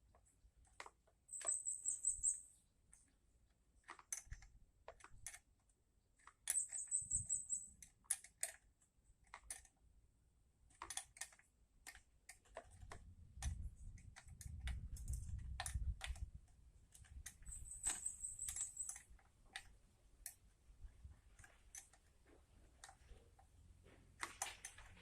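Scattered light clicks and taps of small parts and tools being handled while working on a grass-cutter carburetor, with three short high chirping trills and a brief low rumble in the middle.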